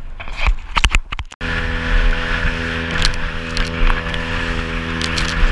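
A few knocks of handling against the camera, then, after a sudden cut-out about one and a half seconds in, a small open boat's outboard motor running steadily at speed. Spray hisses along the hull, and the hull slaps on the waves now and then.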